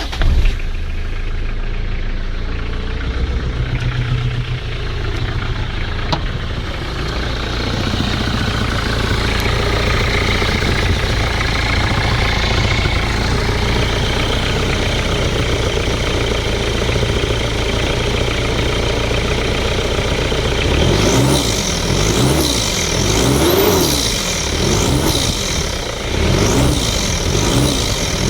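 Mitsubishi Pajero 2.8 four-cylinder turbodiesel running with its air-filter box removed, so the turbo intake is open. It idles steadily for most of the time, then from about three quarters of the way through is revved quickly about once a second, each rev bringing a high turbo whistle that rises and falls with the engine.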